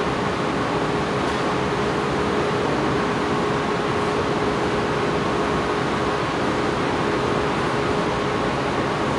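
Steady rushing noise of running kitchen equipment with a constant low hum, unchanging throughout, while a large pot of stuffed grape leaves cooks on its burner.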